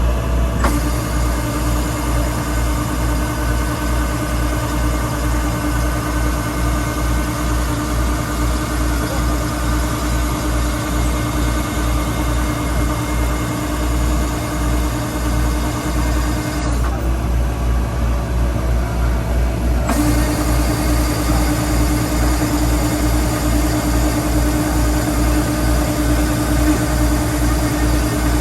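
Kubota rice combine harvester's diesel engine and machinery running steadily, with a low pulsing rumble and a constant whine; past the middle the higher sounds drop away for about three seconds, then return.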